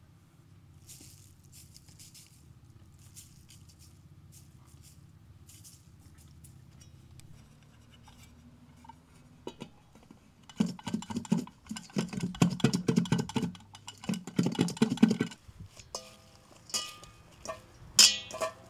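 Kitchenware clattering: a few seconds of loud knocking and rattling of a metal pot and its lid about halfway through, then a fork and spoon clinking against a stainless steel bowl of fresh herbs as they are tossed, the bowl ringing briefly after the strikes. Before that, faint rustling of leafy herbs.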